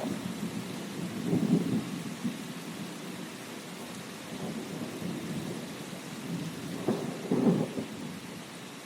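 Steady rain with rolling thunder, the low rumble swelling about a second and a half in and again near the end.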